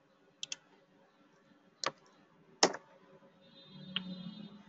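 Computer mouse and keyboard clicks: a quick double click, then two louder single clicks about a second apart. A low hum comes in near the end.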